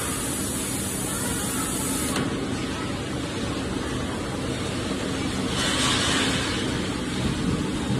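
Food production line machinery running with a steady drone and hiss. A brief louder hiss comes about six seconds in.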